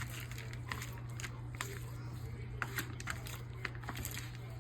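Mayo-dressed salad being mixed in a bowl: scattered, irregular crinkling and crackling clicks over a steady low hum.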